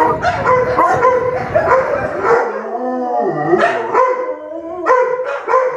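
Several dogs howling together, their long wavering howls overlapping, with short barks breaking in during the second half.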